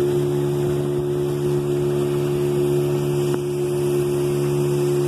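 Outboard motor of a small open canoe running steadily at speed: an even engine hum with water rushing along the hull.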